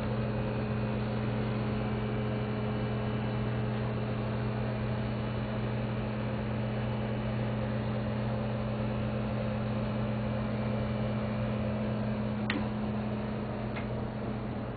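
Steady low hum in a boat's cabin, with two faint clicks near the end.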